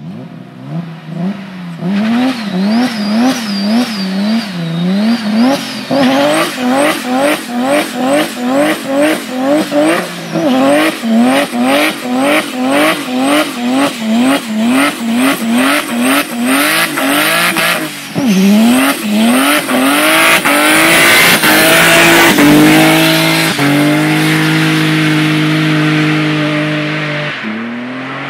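BMW E28 doing a burnout. The engine is revved up and dropped again and again, about twice a second, with the rear tyres squealing as they spin on the tarmac. Later it climbs and holds a steady high rev for a few seconds before easing off near the end.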